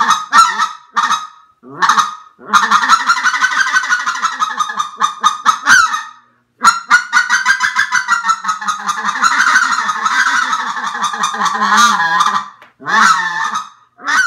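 Xciter Calls Weapons Grade Cadre specklebelly (white-fronted goose) call blown by mouth. It opens with a few short separate notes, then plays two long runs of rapid chattering notes, and finishes with a couple of short calls near the end.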